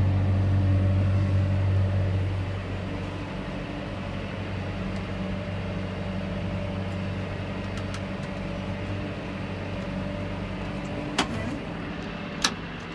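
John Deere 6125R tractor's diesel engine running steadily under load while pulling a rotary tiller, heard from the cab; the sound drops noticeably quieter about two seconds in and holds a steady hum. Two sharp clicks near the end.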